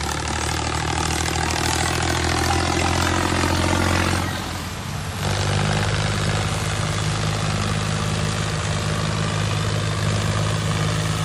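Tractor engine running steadily under the rushing hiss of wheat grain pouring out of a tipping trailer. The engine note fades briefly about four seconds in, then comes back steady at a different pitch.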